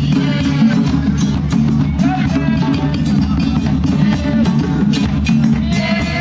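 Drum-led music with dense, steady percussion and voices singing over it.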